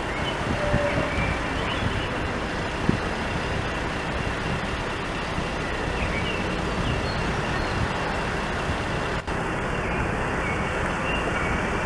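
Steady city street noise as a Basel BVB tram rolls slowly toward the gate on its tracks. There is a single sharp click about three seconds in and a brief dropout near nine seconds.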